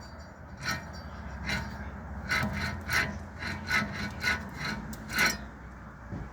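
Worn wheel bearing grinding as the wheel turns: a repeated rough rasp, roughly two strokes a second, over a steady low hum. The sound is the sign of a bad wheel bearing.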